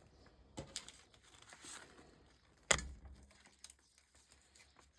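Light crinkling and rustling of craft packaging and pieces being handled, with scattered small clicks and one sharp knock about two and a half seconds in.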